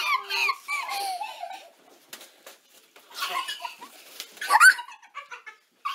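Women giggling and squealing with laughter in several bursts, the loudest a little before the end.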